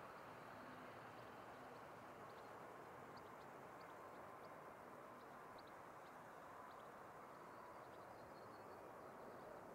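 Near silence: a faint, steady outdoor background with scattered faint, short, high chirps.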